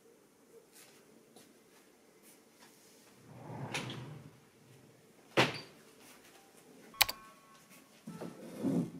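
Handling at a wooden cabinet: a rustle of movement, then a sharp knock about halfway through and a sharp click with a brief ring a second and a half later, as a cupboard door is opened and shut. More rustling follows near the end.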